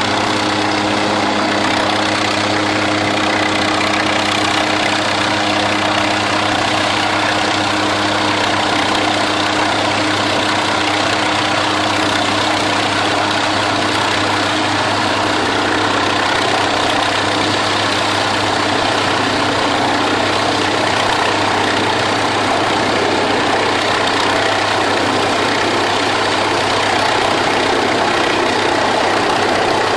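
Northrop Grumman MQ-8B Fire Scout unmanned helicopter hovering, its turboshaft engine and rotor running steadily as a loud, even noise over a low hum. The hum weakens somewhat in the second half.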